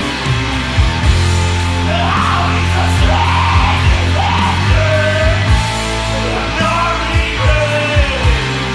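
Rock song played by a band of electric guitar, bass guitar and drums, with a heavy bass line and repeated drum hits under a bending melodic line.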